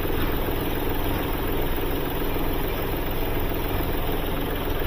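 Hyundai Xcent's three-cylinder CRDi diesel engine idling steadily while an injector back-leak test is under way.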